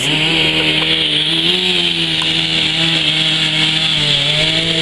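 Chainsaw running at full throttle, cutting through a gum tree trunk during felling, with a steady engine note that dips briefly about four seconds in.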